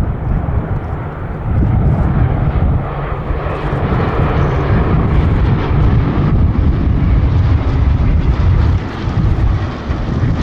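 Hawker Hurricanes' Rolls-Royce Merlin V12 piston engines running as the formation flies past, a deep, steady rumble.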